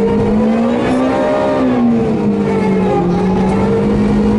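Rally car engine under hard driving, heard from inside the cabin, its revs rising and falling with the throttle and gear changes.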